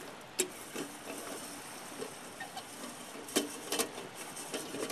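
Dry-roasting pieces of dandelion root in a pan, stirred so they click and tap irregularly, with a cluster of sharper clicks a little past the middle.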